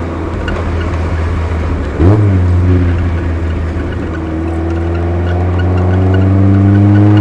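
Exhaust note of a Eunos Roadster's tuned four-cylinder through a new Car's CP1 60 mm muffler, picked up by a microphone near the rear number plate. The engine pulls steadily, its revs rise sharply about two seconds in, then climb slowly as it accelerates.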